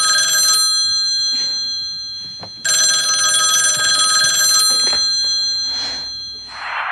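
Landline telephone bell ringing: two rings of about two seconds each, each dying away after it stops.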